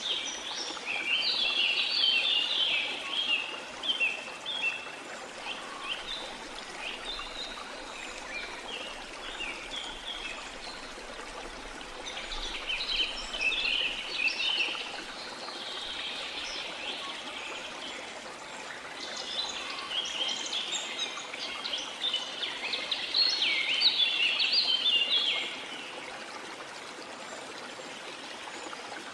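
Songbirds chirping over a steady rush of flowing water, a nature background track. The birdsong comes in three main spells, near the start, around the middle, and in the last few seconds before the end.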